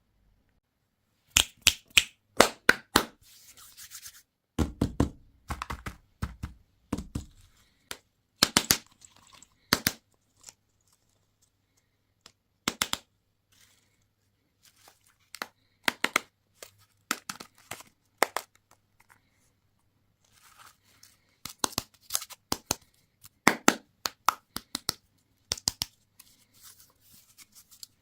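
Candy and toy packaging being handled and torn open: irregular clusters of sharp crackles and clicks with short silent gaps, and a few low thumps about five to seven seconds in.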